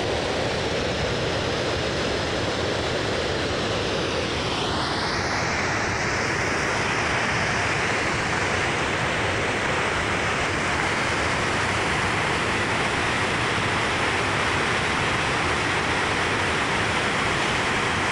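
Water rushing over a low river dam's spillway in a steady roar of whitewater. About five seconds in, the sound turns from a lower rush to a brighter hiss.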